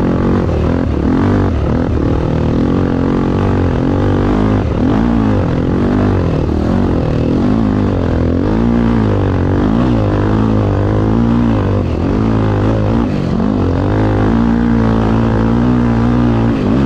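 Single-cylinder motorcycle engine of a Honda Tornado 250 running hard. The revs rise and fall over and over as it is throttled and shifted through the sand.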